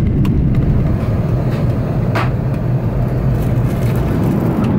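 Steady low rumble of an airliner's engines and airflow, heard inside the passenger cabin, with a few light clicks.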